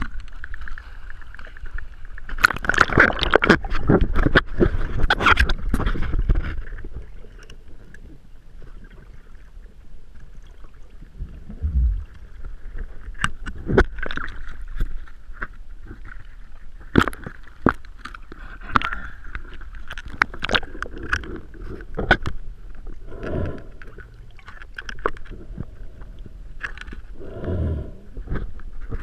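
Sea water sloshing and splashing right at a camera held at the water's surface, loudest for a few seconds early on. It is followed by quieter lapping with scattered sharp knocks against the camera, and a couple of short gurgling bursts near the end as the camera goes under.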